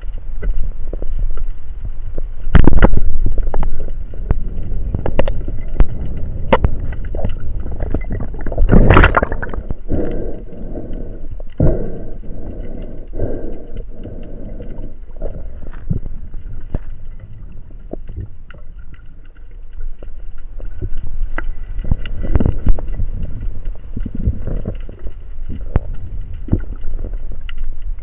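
Underwater sound picked up through a spearfisher's camera housing: a steady low rumble of water moving, with scattered knocks and clicks. The loudest is a sharp crack about nine seconds in.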